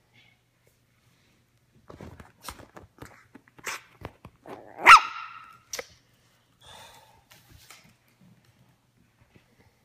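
Teacup Yorkshire terrier puppy gives one sharp bark about five seconds in, after a couple of seconds of light knocks and clicks.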